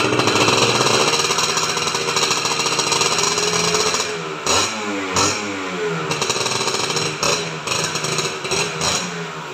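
Kawasaki Ninja 150 RR's two-stroke single-cylinder engine revved with the bike standing: held at high revs for about four seconds, then revs falling and rising on throttle blips, with several short sharp blips near the end.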